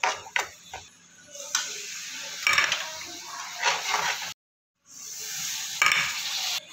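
Steel spoon stirring and scraping thick moong dal halwa around a steel kadai while it sizzles, with a scrape about once a second. The sound cuts out completely for about half a second midway.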